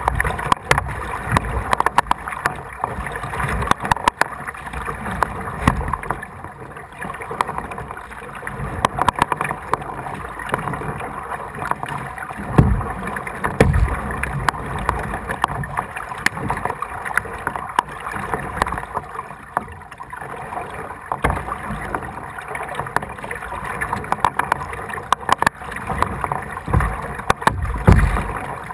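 Kayak paddling through floodwater: irregular splashing and dripping from the paddle strokes and water lapping at the hull, with a few dull thumps.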